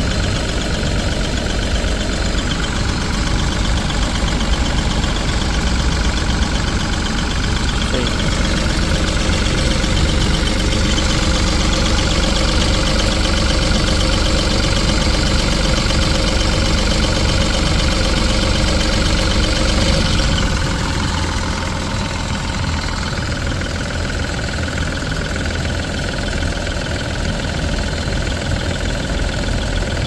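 Force Cruiser diesel engine idling steadily, heard up close with the bonnet open. About two-thirds of the way through, the note changes and the sound gets a little quieter.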